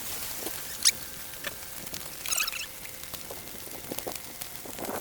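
Scattered light clicks and rustles, with one sharp click about a second in and a brief crinkle a little after two seconds in.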